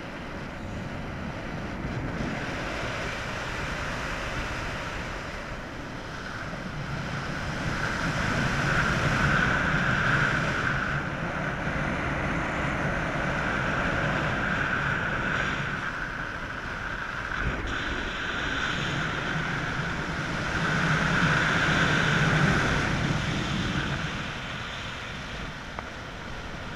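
Airflow rushing over an action camera's microphone on a pole during a paraglider flight, a steady wind noise that swells louder about ten seconds in and again a little past twenty seconds.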